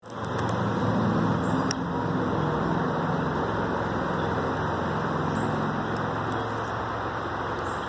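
Steady low rumble of motor vehicle noise, with a faint low hum that wavers slightly in pitch and a few light clicks.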